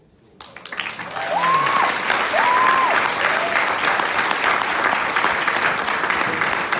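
Audience applauding after a speech: the clapping starts about half a second in and swells to full within a second. About a second in, two drawn-out shouted cheers ring out over it.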